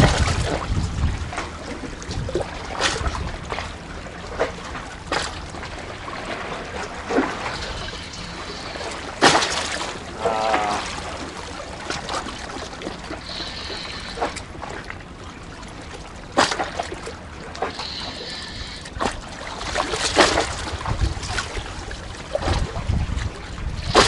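Sea water lapping and sloshing among concrete tetrapods, with scattered sharp splashes, the strongest about nine, sixteen and twenty seconds in. Wind buffets the microphone near the start and end.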